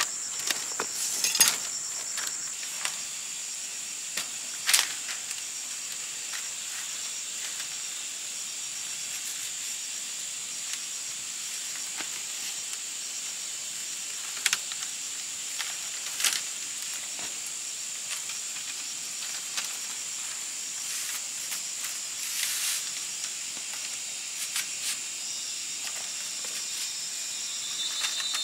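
Steady high-pitched chorus of insects, with now and then a sharp click or tap of split bamboo strips being handled and laid down.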